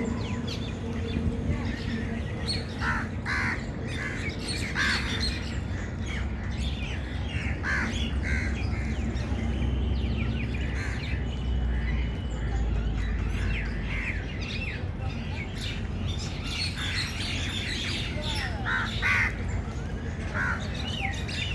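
Crows cawing in short repeated calls, in bunches with pauses between, with other birds chirping, over a steady low background rumble.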